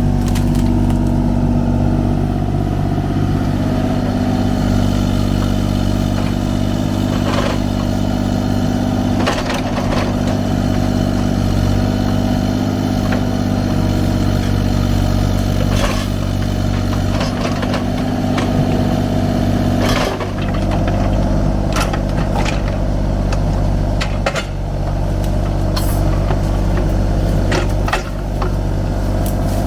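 Kubota U35-4 mini excavator's diesel engine running steadily under work, with scattered sharp knocks and clanks.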